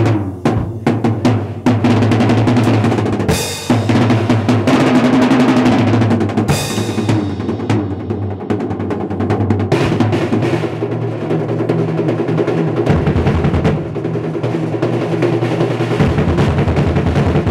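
Acoustic drum kit played in a fast, busy solo with sticks: rapid rolls on the snare and toms, two louder crashes about three and a half and six and a half seconds in, and the bass drum coming in strongly near the end.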